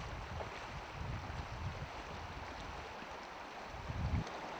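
Shallow river running over stones, a steady rush of water, with wind buffeting the microphone in low rumbling gusts, strongest near the end.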